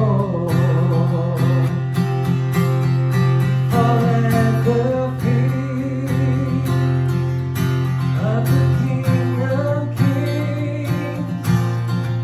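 Worship song played on a strummed acoustic guitar with a sung melody over it: a hymn arrangement.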